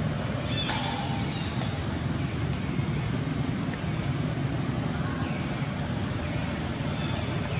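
Steady low outdoor rumble, with a couple of faint, short high squeaks from young macaques scuffling on the grass, about a second in and near the middle.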